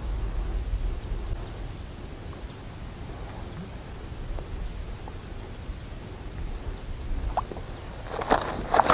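Water lapping and sloshing around an angler wading in a reservoir, over a steady low rumble, with a short run of splashes and clatter near the end.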